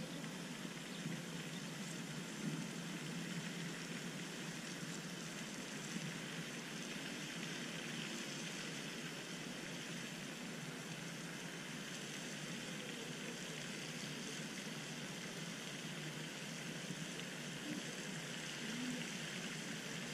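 Steady rush of falling water from a pond fountain, with a few faint ticks.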